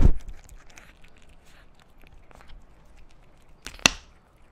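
A kitten eating flaked tuna close to the microphone: many small, soft clicks of chewing and licking, with one sharper click near the end. It opens with a loud rumbling noise that dies away within a fraction of a second.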